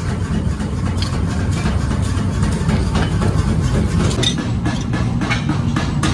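Steady low engine-like drone, with a run of sharp, evenly spaced taps about three a second in the second half.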